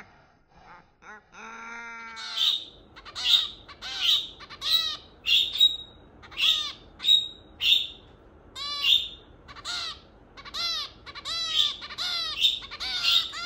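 A zebra finch calling over and over: short, loud, nasal calls repeated about one and a half times a second, starting about two seconds in.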